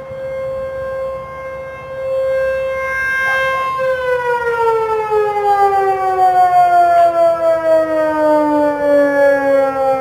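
Outdoor tornado siren sounding during a test. It holds a steady tone, then about four seconds in one tone begins sliding down in pitch while a second holds steady, and the sound grows louder and wavers.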